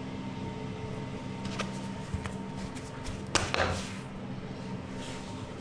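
Bread dough being handled by hand on a floured wooden workbench: light taps, then one sharp knock on the wood about three and a half seconds in. A steady machine hum runs underneath.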